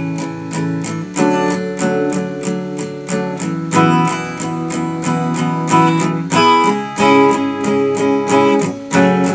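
Acoustic guitar strummed in a quick, even rhythm, the chords changing several times: an instrumental break between sung lines.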